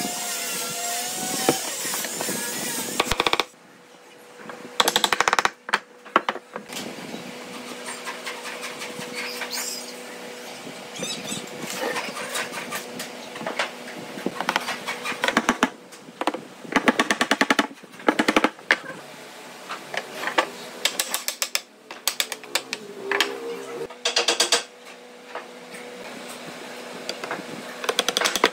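Repeated runs of rapid sharp knocks on wood, with pauses between them, as glued wooden joints are knocked together. A steady noise comes before the first knocks, in the first few seconds.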